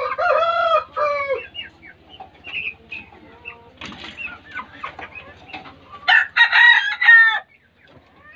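Aseel chickens calling: a long crow at the start and another about six seconds in, with softer clucks between.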